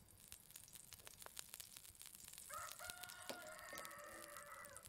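A rooster crowing, one long call starting about halfway through. Before it, rapid light crackling ticks as cooking oil is poured into a frying pan.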